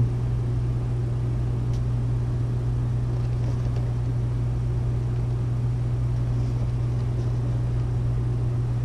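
Steady low mechanical hum, a constant drone from a machine running in the room.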